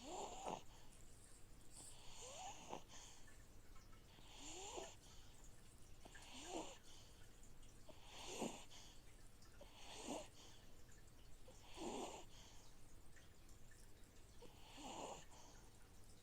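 Soft, regular snoring, about eight snores roughly two seconds apart, over the steady low hum of an aquarium filter running.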